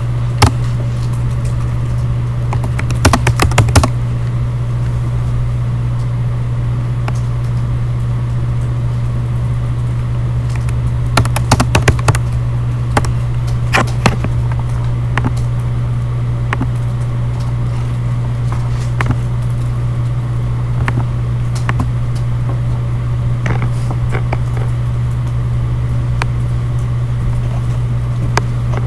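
Typing on a computer keyboard, in two short runs of quick key clicks with scattered single clicks between, over a loud steady low hum.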